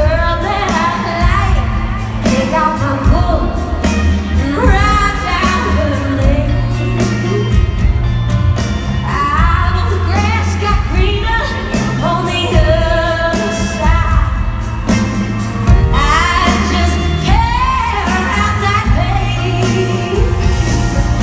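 Live country-rock band playing a slow song with lead vocals sung over it, heavy bass and drums, as heard from the audience in a large hall.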